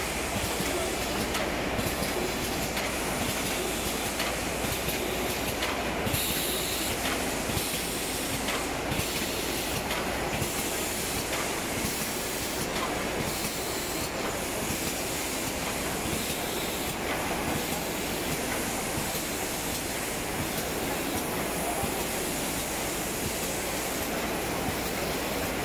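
Automated packaging line machinery running: steady machine noise with faint clicks mixed in.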